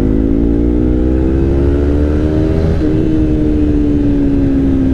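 Yamaha R3's parallel-twin engine through an Akrapovič GP slip-on exhaust while riding. The engine note rises steadily in pitch, jumps up briefly about three seconds in, then slowly falls as the bike eases off.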